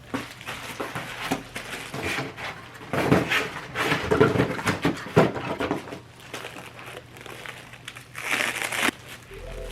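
Packing material from a lamp box being handled and crumpled: irregular crinkling and rustling, busiest in the middle, with one short louder rustle near the end.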